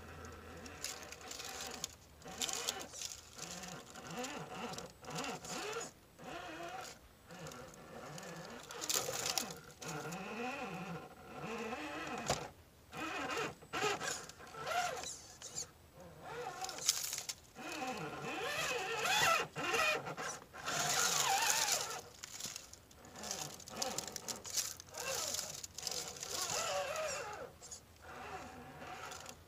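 Electric motor and geared drivetrain of an Axial UMG10 RC rock crawler whining in short start-stop bursts as it climbs boulders, the pitch rising and falling with the throttle, with clicks between the bursts.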